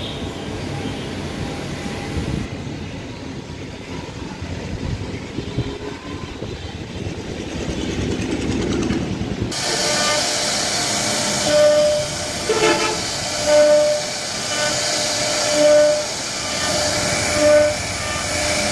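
A low rumble for the first half. About nine seconds in, the sound changes abruptly to a CNC router's spindle carving wood with a pointed engraving bit: a high hiss with a ringing tone that swells louder about every two seconds as the bit cuts.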